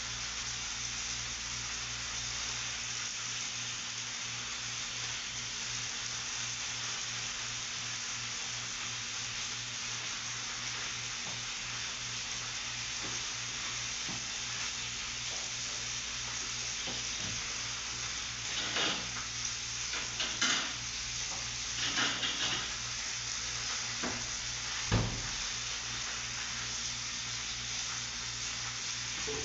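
Steak frying in a pan, a steady sizzle throughout. Several sharp clinks and knocks of dishes and utensils come about two-thirds of the way through, the loudest near the end of that cluster.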